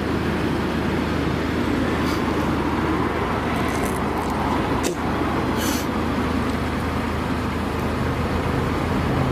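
Steady road traffic noise with a constant low engine hum. A brief sharp click about five seconds in.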